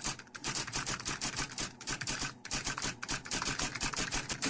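Typewriter sound effect: keys striking in a rapid, uneven run of clicks, several strokes a second.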